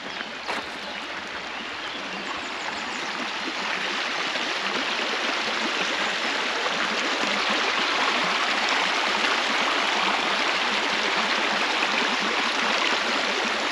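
Running water from a mountain stream, a steady rush that grows louder over the first half and then holds steady.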